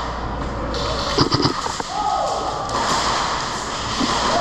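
A few quick sharp clicks in a short cluster about a second in and again at the very end, over a steady rushing noise, with a brief falling tone in between.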